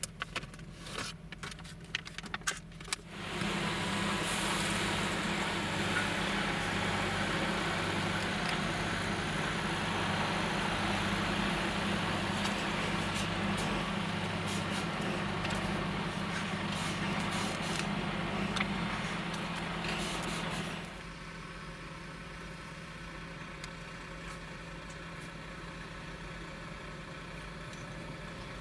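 Car idling with a steady low hum and a few light clicks at first. A few seconds in, a louder, even rushing noise with a slow throb about once a second comes in and cuts off suddenly at about twenty seconds.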